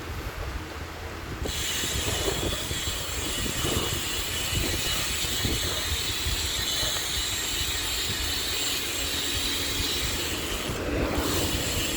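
Enemy Soundwave BMX rear hub freewheeling as the bike coasts: a steady, high-pitched ratcheting whir that starts about a second and a half in and breaks off briefly near the end.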